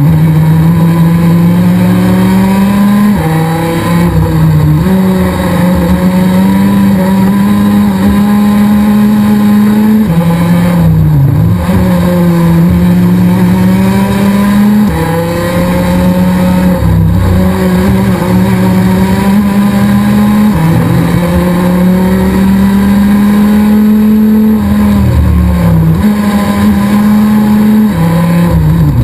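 Rotax DD2 racing kart's 125 cc two-stroke engine at race pace. Its note climbs slowly in pitch on each straight and drops sharply about eight times as the kart brakes and turns into corners.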